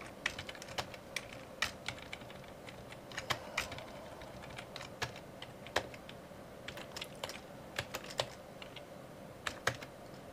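Typing on a computer keyboard: scattered keystrokes in short, irregular runs with pauses between them.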